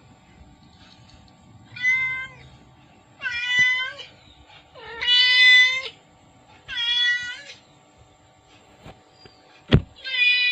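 Cat meowing five times, each call under a second long and spaced a second or more apart, with a single sharp knock just before the last meow.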